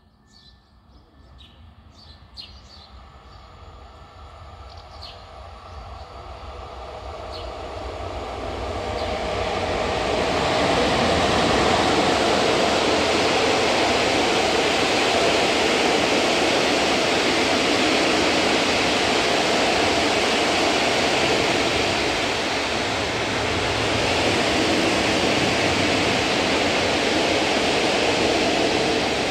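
ET22 electric freight locomotive hauling a long train of open coal wagons, approaching and passing. The noise of the train builds over the first ten seconds or so, then the wagons roll past in a loud, steady rush of wheels on rails.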